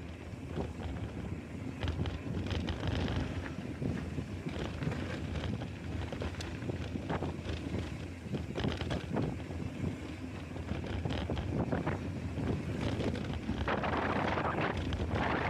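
Wind buffeting a small action camera's microphone as a mountain bike rolls fast over a dirt trail, with the rumble of tyres and frequent short clicks and rattles from the bike over bumps. The wind and tyre hiss grows louder near the end.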